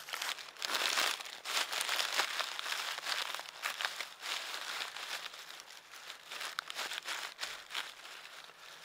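Irregular crinkling and crunching rustles, busy through the first few seconds and thinning out toward the end.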